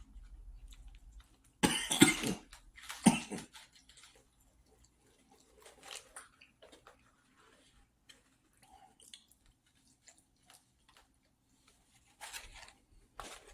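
A person eating, coughing loudly twice about two and three seconds in, followed by soft chewing and mouth sounds.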